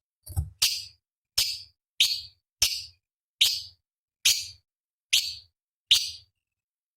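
Cucak cungkok leafbird giving a series of short, harsh, rasping call notes, about nine of them, one every three quarters of a second or so, stopping shortly before the end.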